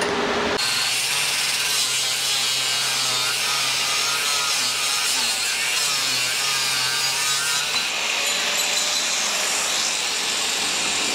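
Handheld angle grinder with a cut-off disc cutting through a steel side-stand part, starting about half a second in. Its pitch wavers while the disc is in the metal, then steadies for the last few seconds.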